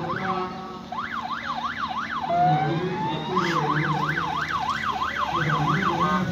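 Ambulance siren on an approaching van, a fast yelp sweeping up and down about four times a second. It breaks off twice, and a short rising tone fills the second break. The van's engine runs low beneath it.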